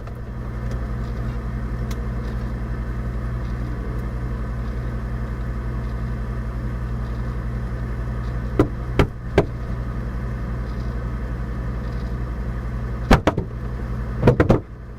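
Refrigerator humming steadily, heard from inside the closed fridge, with a few short knocks in the second half.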